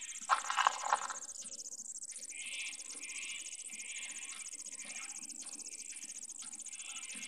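Insects chirring steadily in a fast, high-pitched pulse. A few short, louder sounds come in the first second.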